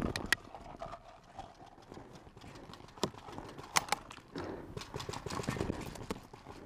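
Scattered sharp pops of paintball markers firing and paintballs striking, a single pop about three seconds in and a quick pair just after, with scuffing and rustling of movement in the grass through the second half.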